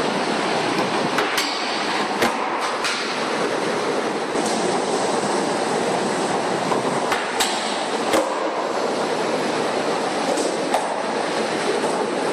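Skateboard wheels rolling across a skatepark floor: a steady, loud rumble with several sharp clacks at uneven intervals.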